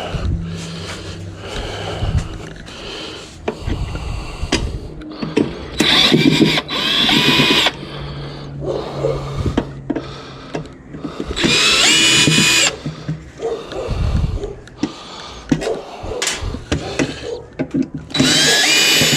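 A power drill driving screws out of the autoclave's door panel, whirring in three short bursts that each rise quickly to speed, with clicks and knocks of handling in between.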